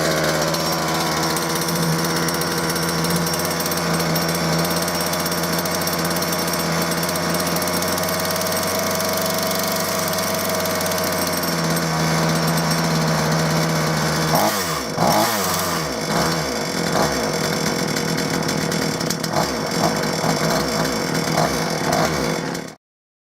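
Gardenline GLPC 41 two-stroke chainsaw engine idling steadily, then revved up and down with repeated throttle blips from about halfway through; it is starting and running nicely on its cleaned, retuned carburettor. The sound cuts off abruptly near the end.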